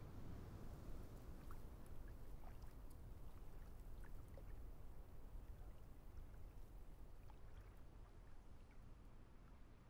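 Faint low rumbling ambient noise with a few faint scattered ticks, easing off slightly near the end.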